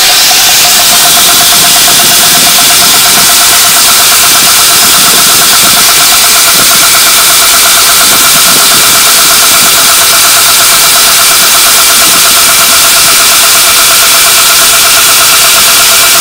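Belt grinder running with a 3M Trizact A45 abrasive belt, a loud steady whine over a hiss, while a high-speed-steel drill bit is held against the belt and ground to resharpen its cutting edge.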